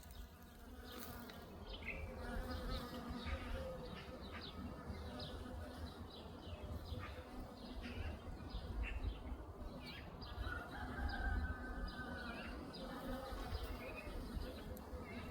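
Bees buzzing around flowering hawthorn, the drone swelling and fading as they fly close past, with a stronger pass about two-thirds of the way in. Small birds chirp throughout.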